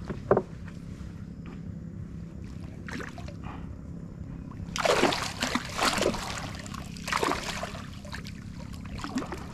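Splashing at the water surface as a hooked matrinxã thrashes while it is hauled up from a longline to the canoe. Several loud bursts of splashing come about halfway through.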